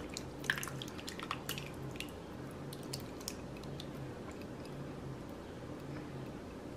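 Thick salsa verde glugging and splatting out of a glass jar onto raw chicken breasts in a slow-cooker crock: a few short wet squelches in the first two seconds, then a thin dribble, with only a faint low hum beneath.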